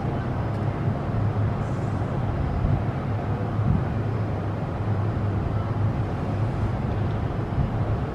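Steady low rumble of traffic on a busy road.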